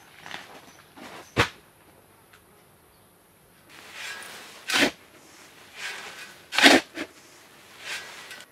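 A shovel scooping into a pile of sand and gravel: three scrapes about two seconds apart, each ending in a sharp hit of the blade. Before them, one sharp knock about a second and a half in.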